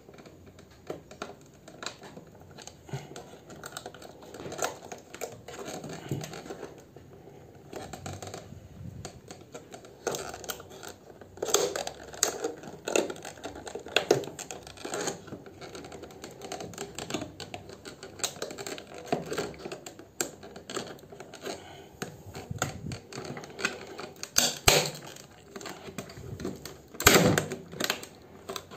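Scissors snipping through a rigid clear plastic clamshell package: a run of irregular crunchy clicks and snaps. Near the end the cut plastic cracks loudly as it is pulled apart.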